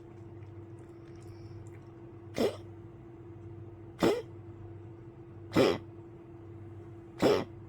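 An old poodle coughing: four short, separate coughs, about one every second and a half.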